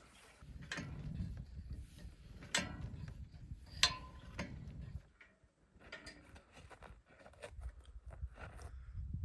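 Scattered knocks and clicks of objects being handled, with one sharp metallic clink that rings briefly near four seconds in.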